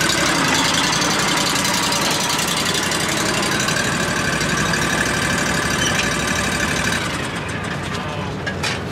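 Engine of a Wright Stander stand-on commercial mower running steadily as the mower is driven up a steel mesh ramp into a pickup bed. The engine sound eases off about seven seconds in.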